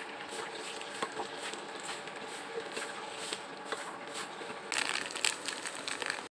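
Olive pieces frying in mustard oil in a wok, a steady crackling sizzle with faint scattered pops, rising to a louder hiss for a moment near the end.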